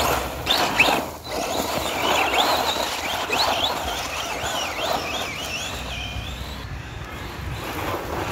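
Arrma Typhon RC buggy's brushless electric motor whining up and down in pitch with the throttle as the buggy speeds away over a dirt path, with tyre and gravel noise. The whine fades out after about five seconds.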